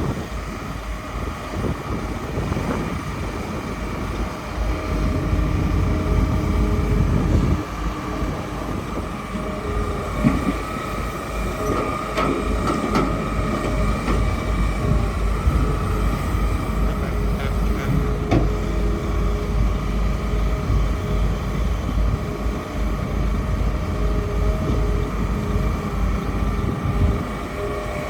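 Hitachi hydraulic excavator working: engine rumble under a steady hydraulic whine, with a few metallic knocks.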